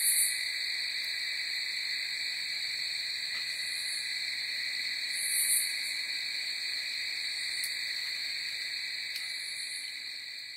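Night chorus of calling animals: a steady high trill that never breaks, with a few short, higher sounds over it.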